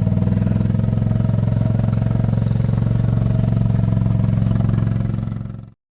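A vehicle engine running steadily at a low, even speed with a rapid regular pulse. It cuts off abruptly near the end.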